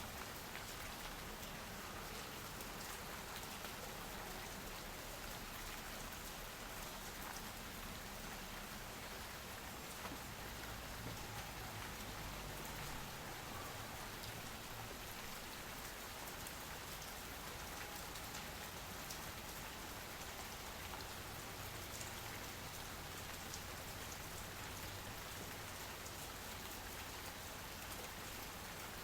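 Steady rain falling, an even hiss dotted with the fine ticks of individual drops, at an unchanging level.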